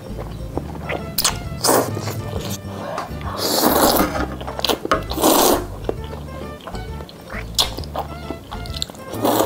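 Instant ramen noodles slurped through the lips in a series of short, loud slurps, the longest about four and five seconds in, over background music.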